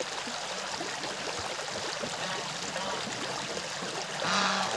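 Small stream running steadily between snow banks. About four seconds in, a short, louder pitched call rises over it.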